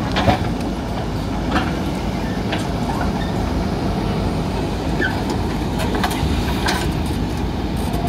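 JCB backhoe loader's diesel engine running steadily as the backhoe dumps a bucket of soil and swings its arm back down to dig, with a few short knocks along the way.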